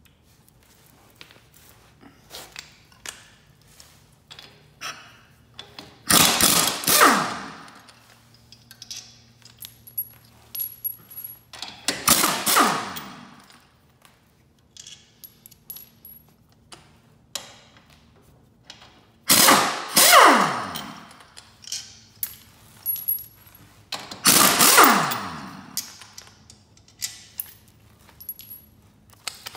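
Air impact wrench hammering the track-wheel bolts loose in four bursts of a second or two each, its pitch falling as it winds down at the end of each burst. Between bursts, small clicks and taps of the socket being fitted onto the bolts.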